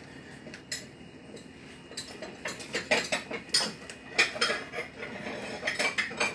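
Dishes and utensils clinking and clattering on a kitchen counter as a plate is set out and food is served onto it: a few light clicks, then from about two seconds in a quick run of sharp knocks and clinks.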